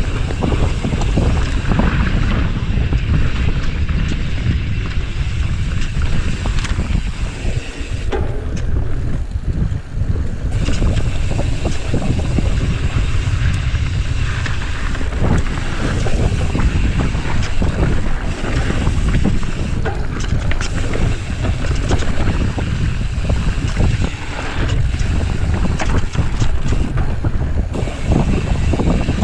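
Wind buffeting the camera microphone on a mountain bike descending dirt singletrack, a steady rumble of tyres on the trail with many small knocks and rattles from the bike over bumps.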